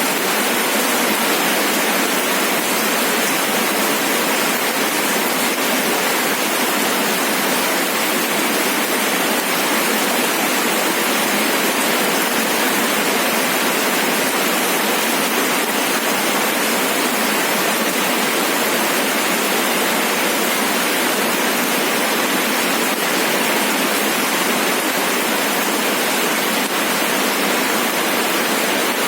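Steady rain falling, an even, unbroken wash of noise with no separate drops, thunder or changes standing out.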